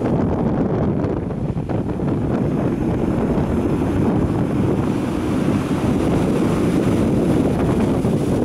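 Strong wind buffeting the microphone over surf breaking and washing up a pebble beach, a steady rush of noise.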